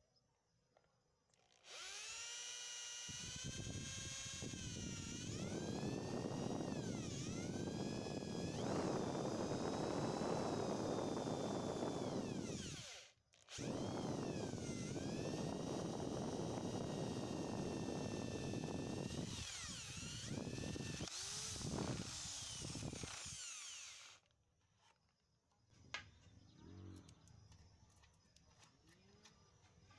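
Electric drill boring a spade bit through a wooden broom handle: the motor whine starts about two seconds in and sags in pitch each time the bit bites into the wood, stops briefly about halfway, then runs again until a few seconds before the end. Faint handling clicks of the wood follow.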